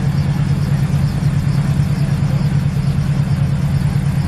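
Small two-seat helicopter running on the ground with its main and tail rotors turning: a steady low engine drone with a fast, regular rotor beat.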